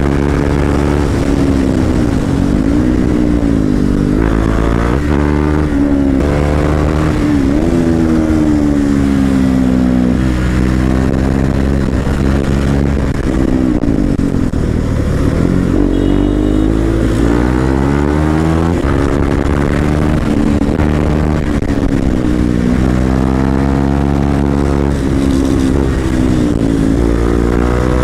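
Motorcycle engine heard from the rider's own bike, its pitch climbing and dropping several times as the throttle is opened and eased off along a winding road.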